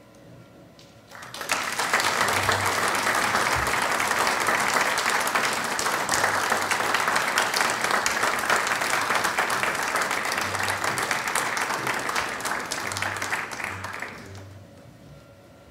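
Audience applauding: the clapping starts about a second in, holds steady, and fades out near the end.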